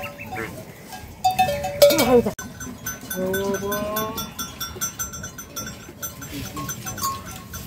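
Farm animals bleating: a short falling call about two seconds in and a longer call a second later, with small animal bells clinking on and off.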